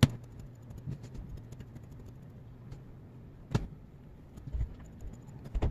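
Handling noise from wicking a vape atomizer deck: scattered sharp clicks and light knocks of small metal tools against the metal deck and table, the loudest at the start, about three and a half seconds in, and near the end, over a faint steady low hum.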